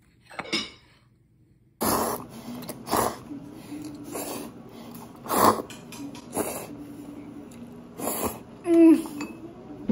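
A person slurping ramen noodles from a bowl, a series of loud slurps about a second apart.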